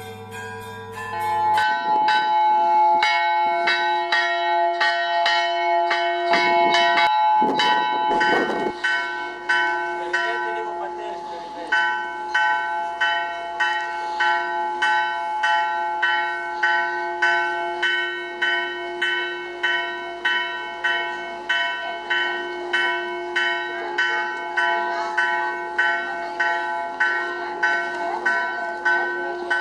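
Greek Orthodox church bells ringing: a quick jumble of strokes from several bells at first, settling after about ten seconds into a steady pattern of about two strokes a second, each stroke ringing on.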